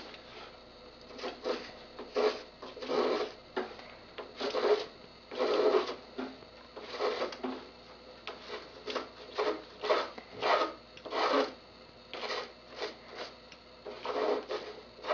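Block plane shaving the tapered end of a cedar strip in a series of short strokes, about two a second, some louder than others. The plane is truing the knife-cut taper to a straight line so the strip fits tight against its neighbour.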